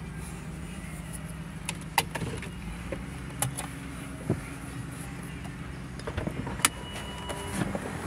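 Mitsubishi 3000GT's V6 idling steadily, heard from inside the cabin, with a few sharp clicks and knocks, the loudest about two seconds in and near the end.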